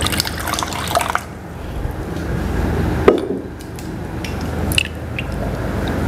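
Water poured from a glass pitcher into a small glass jar to rinse out leftover blended spice paste, running for about the first second. A sharp knock comes about three seconds in as the jar is handled, with a few lighter clicks, over the steady sizzle of spice paste frying in a wok.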